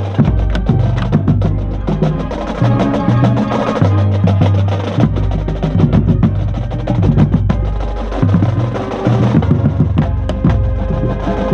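A marching band playing its field show: sustained low brass-band notes changing every second or two under a drumline's dense, rapid snare and bass drum strokes, heard from within the bass drum section.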